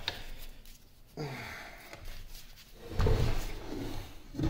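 Heavy cast-iron lathe gearbox housing being turned over and shifted on a wooden workbench: knocks and scrapes, with a louder low rumble of handling from about three seconds in.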